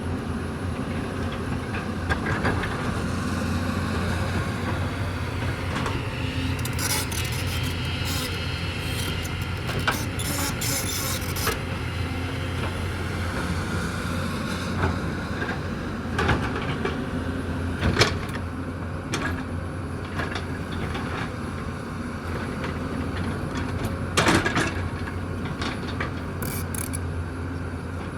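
Hyundai 220 excavator's diesel engine running steadily, with clatters and knocks from the bucket working rock and soil: a cluster of them about a quarter of the way in, a sharp knock about two-thirds through and another near the end.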